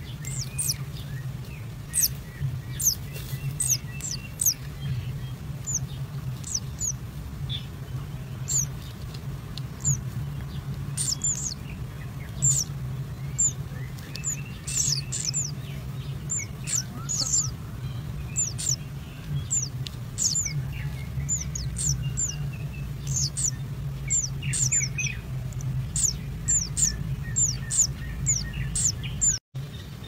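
Kingfisher nestlings' thin, high-pitched chirps: many short down-slurred notes, repeated irregularly, over a steady low hum. The sound drops out for an instant near the end.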